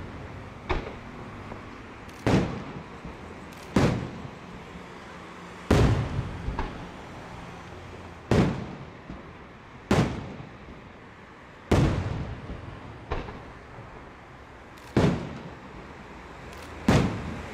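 Coloured aerial firework shells from the 12th May Fireworks Factory bursting one after another: about ten sharp bangs a second or two apart, each trailing off in a rolling echo.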